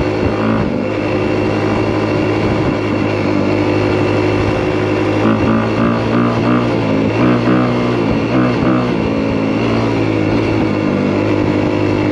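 Honda CRF250R's single-cylinder four-stroke engine running as the dirt bike rides along, heard from the rider's chest. From about five seconds in, its note rises and falls several times in quick pulses before settling again.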